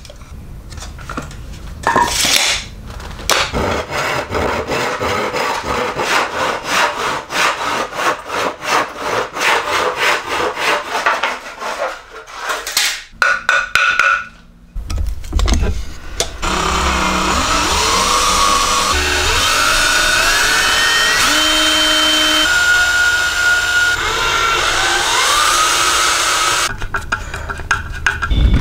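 Hand saw cutting through a wooden board in a plastic miter box, in fast, regular back-and-forth strokes. About halfway through the sawing stops, and a steady whirring follows with repeated rising whines.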